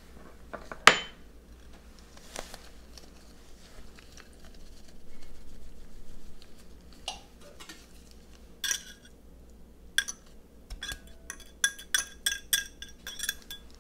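Kitchen utensils knocking and clinking against glass mixing bowls: one sharp knock about a second in, a soft rustle in the middle, then a quick run of short ringing clinks near the end.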